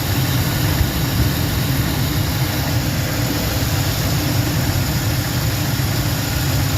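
A 2004 Lincoln Navigator's V8 idles steadily, warming toward operating temperature after the coolant hose was replaced and the system refilled.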